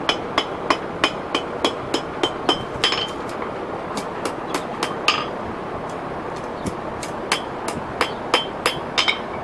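A blacksmith's hand hammer strikes hot iron on an anvil, about three blows a second, each with a bright metallic ring. The blows slow and pause briefly past the middle, then pick up again toward the end.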